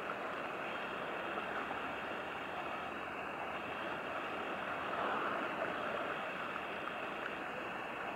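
Steady rushing of river water, swelling slightly about five seconds in.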